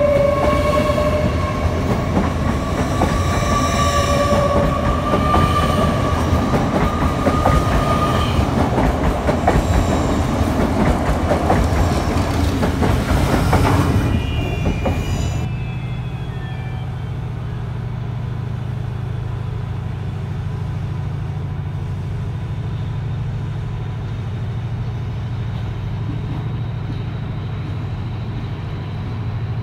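LNER Azuma train accelerating out along the platform: an electric traction whine rising in pitch over the wheels clattering on the rails, fading away about halfway through. Then a steady low diesel drone from a TransPennine Express Class 185 unit on the far tracks.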